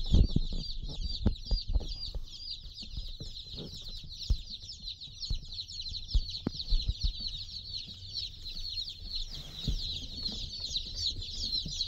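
A dense, continuous chorus of high peeping from a large crowd of day-old chicks, with a few low thumps scattered through it.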